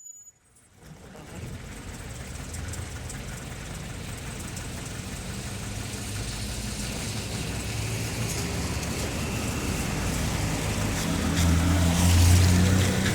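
Road traffic on wet pavement: a steady hiss of tyres on the wet road with vehicle engines underneath. It fades in over the first second and grows louder, with a vehicle's engine loudest about twelve seconds in.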